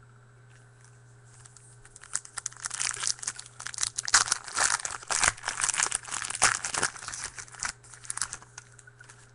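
Foil trading-card pack wrapper being torn open and crinkled: a dense run of crackles starting about two seconds in and lasting several seconds.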